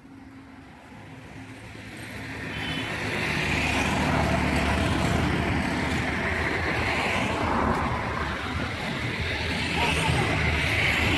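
A motor vehicle's engine running close by, growing louder over the first few seconds and then holding steady.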